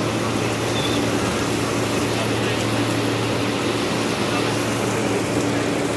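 Heavy rain hissing steadily during a thunderstorm, over a steady low hum.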